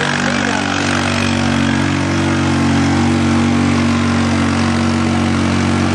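ATV engine running at steady, held revs under load while pulling a weighted sled.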